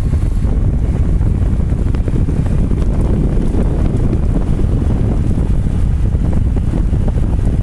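Wind buffeting the microphone: a loud, steady low rumble with no clear tone.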